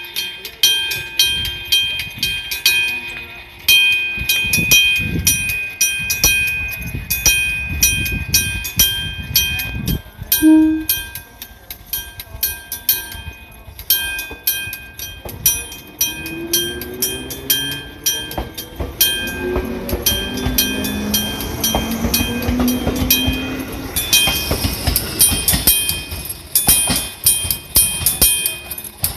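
Electric-bell level crossing alarm (an old-style 電鍾式 warning bell) ringing with rapid, evenly repeated strikes. A train moves through partway in, its motor whine rising and shifting in pitch for several seconds.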